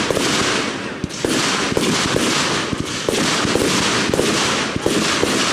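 Fireworks finale barrage: shells going off in quick succession, overlapping bangs and crackling several times a second with no pause.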